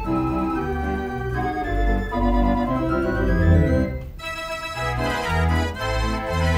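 A pipe organ playing a march: sustained melody notes over a pulsing bass. About four seconds in the music thins out and drops in level briefly, then picks up again.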